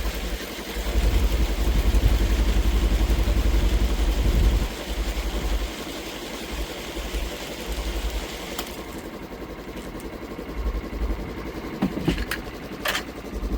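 A vehicle engine running, louder for the first few seconds and then easing to a lower steady run.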